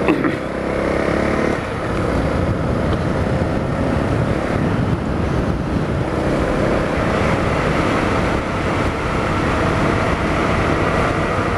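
Honda CRF250L's single-cylinder engine running steadily while the bike is ridden, with wind buffeting the microphone.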